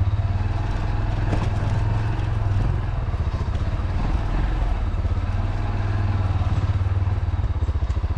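Motorcycle engine running steadily at low speed, a continuous low throb.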